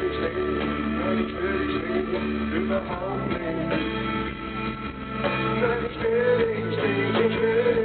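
Live rock band playing: electric guitars, bass and drums, with a man singing over them. The recording is dull, with nothing in the upper treble.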